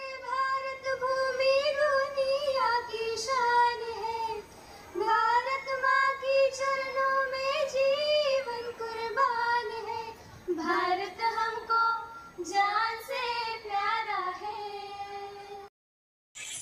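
A group of young women singing a patriotic song together in unison into one microphone, without accompaniment, in long phrases with vibrato; the singing breaks off suddenly near the end.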